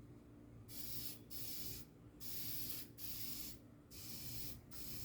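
Deft lacquer spraying from a spray can in about six short hissing bursts, each about half a second long with brief pauses between, as coats of finish go onto plywood ornaments.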